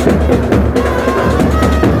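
Dasara festival band music: loud, fast, dense drumming over a steady deep beat, with a few short held melody notes in the second half.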